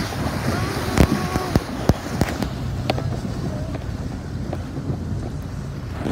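A vehicle driving through deep floodwater, the water splashing and rushing against its side over a low engine rumble, with several sharp knocks in the first three seconds.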